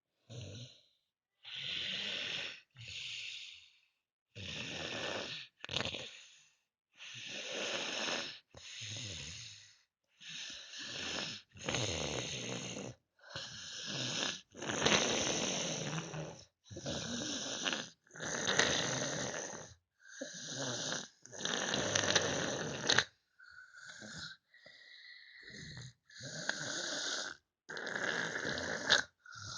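Loud snoring, "like a tank": a quick run of snores, each a second or two long with short pauses between them. Some snores about three-quarters of the way through carry a whistling tone.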